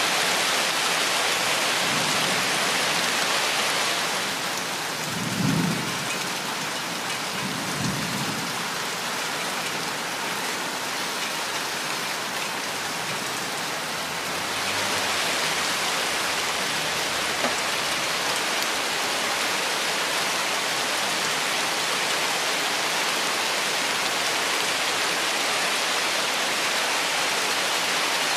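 Steady rain falling on forest foliage as an even hiss. The hiss eases for about ten seconds after the first few seconds, then comes back fuller. A few short, low rumbles come in the first third.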